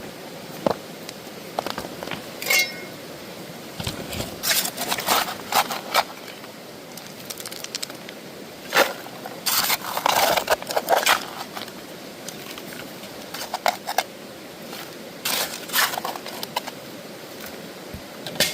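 Digging in streambed gravel and cobbles: scraping and stones clattering in irregular bursts, over a steady hiss.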